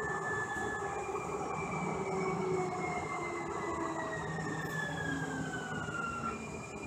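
Siemens S200 light rail car running, heard from inside the passenger cabin: a steady rumble of wheels on track with a thin electric whine from the traction drive. The whine glides slowly down in pitch for about five seconds, then jumps back up near the end.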